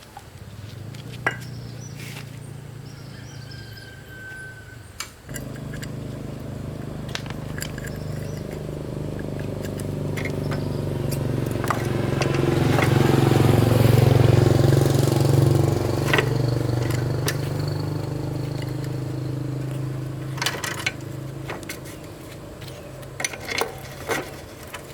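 A small motorbike engine running steadily. It grows louder over several seconds to a peak midway and then slowly fades, with scattered sharp clicks over it.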